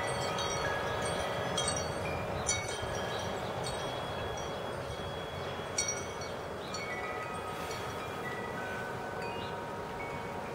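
Wind chimes ringing in a breeze: clear tones at several pitches are struck now and then and ring on, with the sharpest strikes about two, two and a half and six seconds in, and the ringing thins out towards the end. A steady rush of wind lies underneath.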